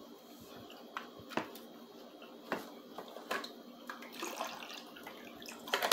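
Quiet, wet mouth clicks of someone chewing food close to the microphone, with a few sharper taps spread through, over a faint steady hiss.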